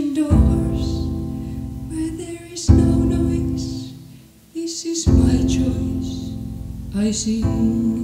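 Song: slow piano chords, a new one struck about every two and a half seconds and each left to ring and fade, with a woman's voice singing over them.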